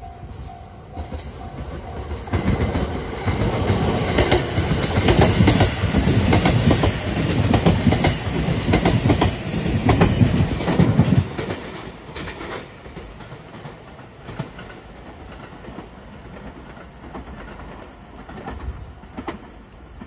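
Electric commuter train passing close by for about ten seconds, its wheels clattering rhythmically over rail joints. A level-crossing bell is ringing in short even pulses at the very start and stops about a second in.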